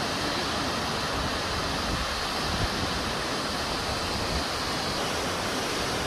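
Ouzoud waterfalls: a steady rush of falling water with no break or change.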